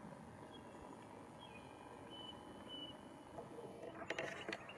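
Faint rural outdoor ambience with a few thin, high bird whistles in the first few seconds, then a short burst of clicks and rustles about four seconds in.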